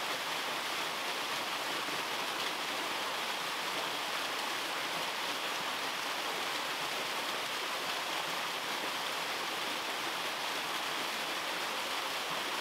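Small waterfall splashing into a rocky pool: a steady rush of falling water.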